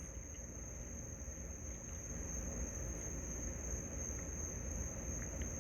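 Crickets trilling: a steady, unbroken high-pitched tone, with a faint low background rumble underneath.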